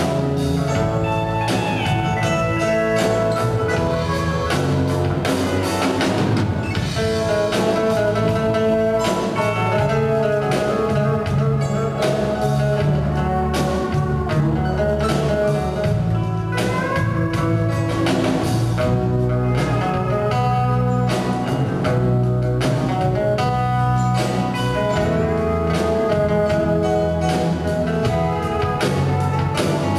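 Live country band playing an instrumental passage with no vocals: acoustic guitar over electric bass and drum kit, at a steady tempo.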